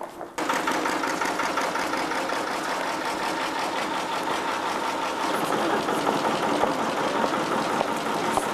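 An engine running steadily with a fast, even rattle. It starts abruptly about half a second in and cuts off at the very end.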